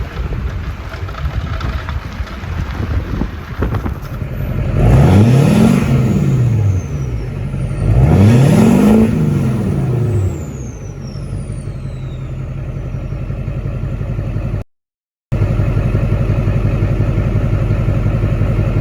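LLY Duramax 6.6-litre V8 turbo-diesel idling and revved twice, about five and eight seconds in. After each rev the turbocharger whistle falls in pitch as it spools down. The sound cuts out for about half a second near fifteen seconds in, then the idle carries on.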